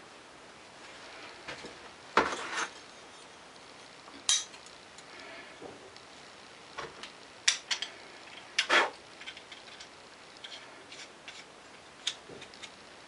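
Steel plane iron and chipbreaker clinking and scraping against each other as they are handled and fitted together: several sharp metal clicks at uneven intervals, with softer handling noise between.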